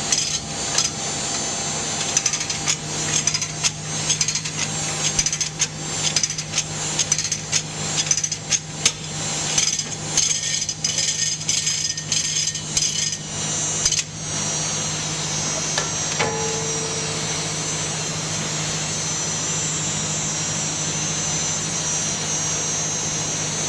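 Closed-door baler's hydraulic power unit running with a steady hum, overlaid for about the first fourteen seconds by rapid metal clanks and rattles as the bale chamber door is opened; after that only the steady hum remains.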